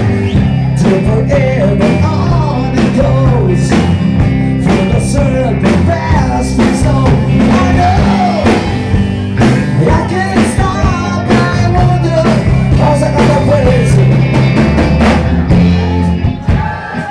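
Live rock band playing: a singer over electric guitar, bass and a drum kit.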